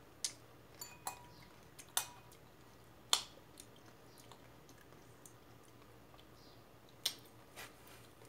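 Metal fork clicking against a ceramic bowl while eating, a few scattered sharp clinks with quiet chewing between.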